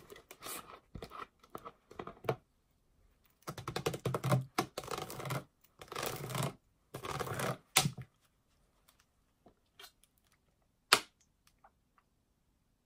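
A thin plastic 2-litre water bottle being handled close up, crackling and crinkling in bursts over the first eight seconds. Then a few faint ticks and one sharp click about eleven seconds in.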